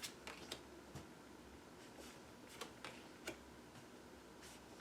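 Tarot cards being handled and set down: a few faint, scattered clicks and ticks over quiet room tone.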